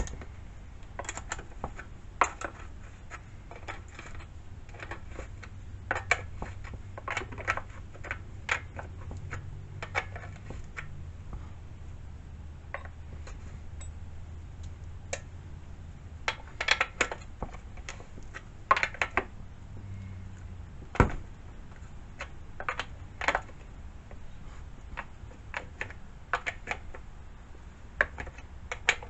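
Chainsaw bar, chain and hand tools being handled and fitted: irregular metallic clicks and clinks, with a sharper knock about two-thirds of the way through.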